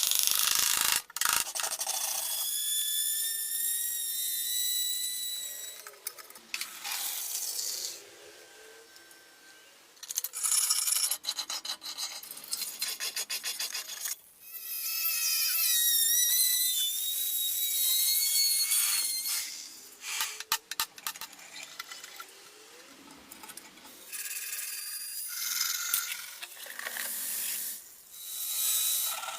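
Rusty steel bayonet blade being scraped and abraded to remove rust, a rough rubbing, rasping sound in several bouts with short pauses, with high squeaky tones at times.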